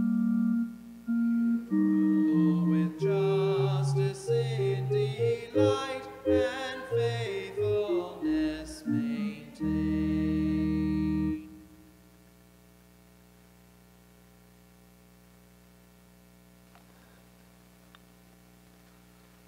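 Psalm refrain sung by a voice over a digital keyboard in an organ-like sound. A few keyboard notes come first, the voice joins about three seconds in, and a held closing chord ends it about eleven seconds in, leaving faint room hum.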